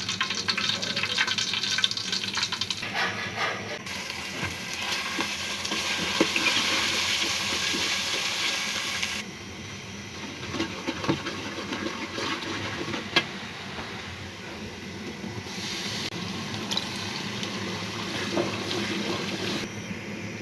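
Running and splashing water, as from a tap into a sink, broken by a few sharp knocks. The sound changes abruptly several times.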